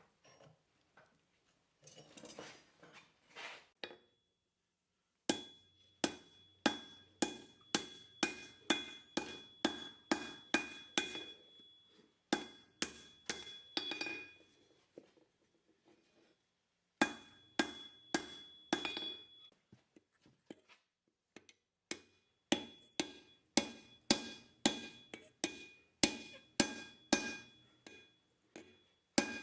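Blacksmith's hand hammer striking steel on an anvil while forging, about two to three blows a second, in three runs separated by short pauses. Each blow leaves a high metallic ring. Softer scraping comes before the first run.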